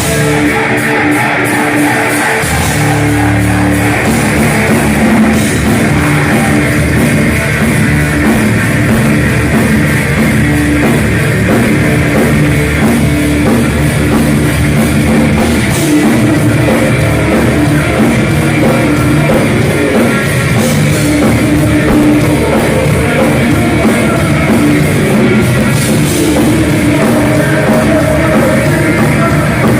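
A heavy metal band playing live, loud and continuous. It opens on guitar, then drums and bass come in about two and a half seconds in.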